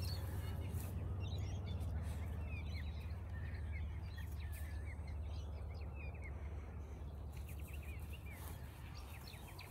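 Outdoor park ambience: a steady low rumble underneath, with small birds chirping in quick short calls through much of it, pausing briefly about seven seconds in.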